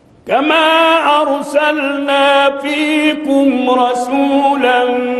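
Male Quran reciter chanting in the melodic tajweed style, one drawn-out ornamented line with stepped turns in pitch, entering loudly about a third of a second in after a short breath.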